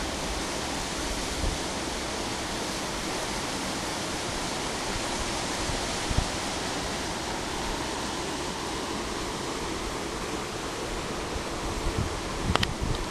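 A steady, even rushing noise, with a couple of sharp clicks near the end.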